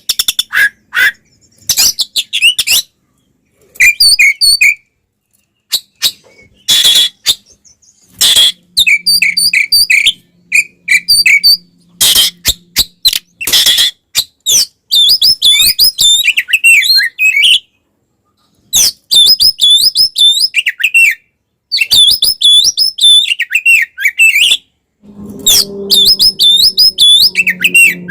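Oriental magpie-robin (kacer) giving its aggressive fighting song in rapid bursts: harsh, rasping calls alternating with fast, rolling whistled phrases, broken by short pauses.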